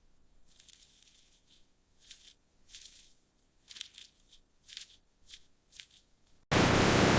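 A run of faint, short crinkling rustles, then about six and a half seconds in a loud, steady rushing noise cuts in abruptly.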